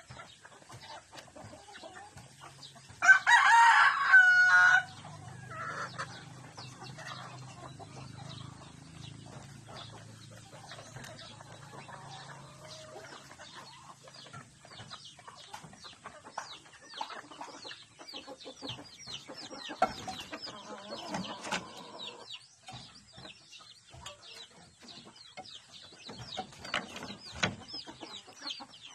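A rooster crows once, loudly, about three seconds in, among chickens clucking quietly.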